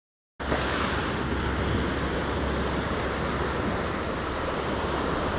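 Steady wind on the microphone over breaking surf, cutting in suddenly about half a second in after complete silence.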